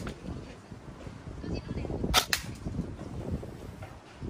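Electric airsoft AR-15 replica firing plastic pellets: two sharp snaps in quick succession about two seconds in, over a low rumble.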